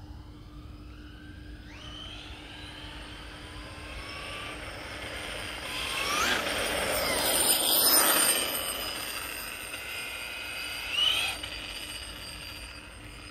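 Brushless electric motor of a 1:5-scale RC rally car accelerating flat out: a high whine that rises in pitch and grows loud, with a rush of tyre noise at its loudest about six to eight seconds in. A short, rising burst of whine follows about eleven seconds in.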